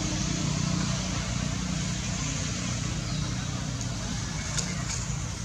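An engine running steadily, a low even hum with a steady hiss over it.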